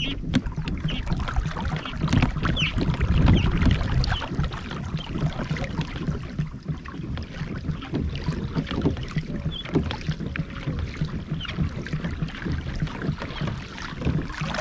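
Water splashing and lapping against a plastic kayak's hull as the kayak moves across a pond, with many small irregular splashes and knocks.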